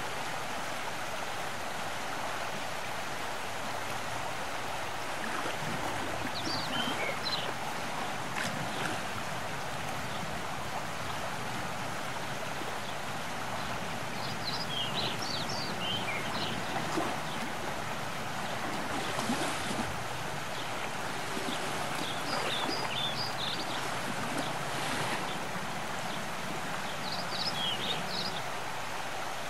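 Steady rushing outdoor ambience by the shore, with a small songbird singing a short phrase of quick high chirps four times, several seconds apart.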